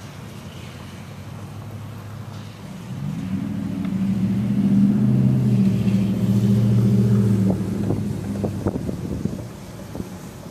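A motor vehicle passing by: its engine grows louder from about three seconds in, holds for a few seconds, then fades away. A few wind gusts on the microphone follow near the end.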